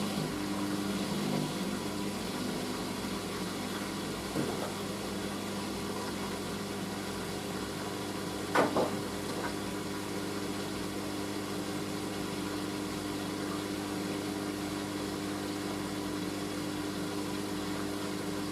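Washing machine drain pump running with a steady electric hum, which cuts off right at the end. A short clink about halfway through.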